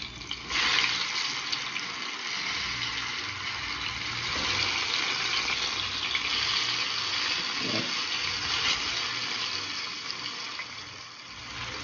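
Breaded croaker fillets shallow-frying in hot oil in a stainless steel pan: a steady sizzle that jumps up about half a second in as the fillets are turned with tongs, and eases off a little near the end.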